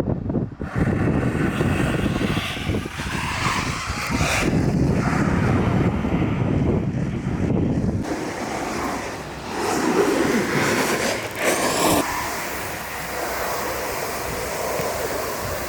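Wind rushing over the microphone above the rumble of freeboard wheels rolling on pavement, with a few knocks near the start and a change in tone about eight and again twelve seconds in.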